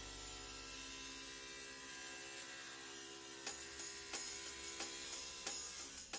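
Quiet background music: soft held tones, joined about three and a half seconds in by a light tick roughly every two-thirds of a second.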